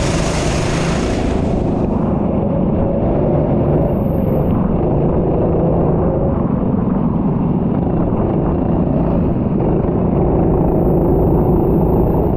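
A racing vehicle's engine running continuously at speed, its pitch rising and falling with the revs. A loud hiss fades out in the first couple of seconds.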